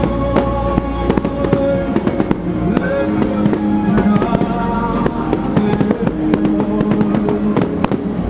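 Display fireworks going off in a dense, irregular volley of bangs and crackles, with music playing loudly underneath.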